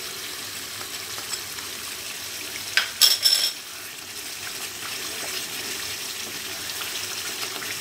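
Thick mango pickle in mustard oil and sugar syrup simmering in a pot with a steady sizzling bubble. About three seconds in a wooden spatula clatters and scrapes against the pot as stirring begins, the loudest sound; stirring then continues over the simmer.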